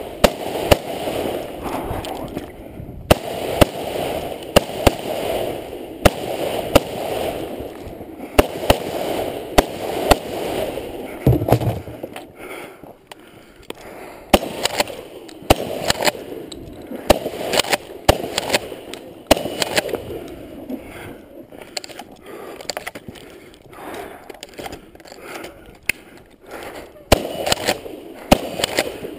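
Repeated sharp gunshots, irregularly spaced and dozens in all, over the scuff and rattle of a shooter moving on foot with a long gun.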